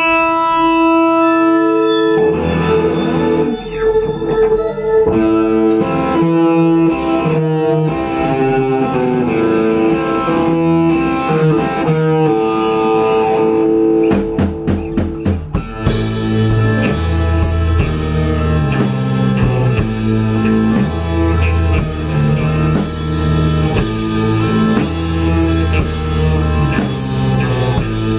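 Live rock band playing an instrumental passage on electric guitars, bass and drum kit. A held guitar chord at the start gives way to guitar riffing, then a run of sharp stop-start hits about halfway, after which the whole band comes in heavy with drums and bass.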